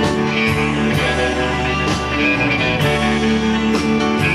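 Live rock band playing an instrumental passage: electric guitars holding sustained notes over bass, with drum strokes about once a second.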